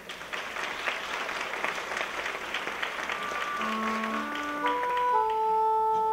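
Audience applause that dies away as a keyboard starts playing sustained organ-like notes, climbing upward in pitch from about halfway through.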